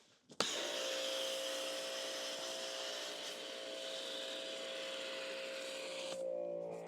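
Electric pressure washer running under load, a steady motor whine with the hiss of the water spray. It starts abruptly about half a second in after a brief gap and drops out just before the end.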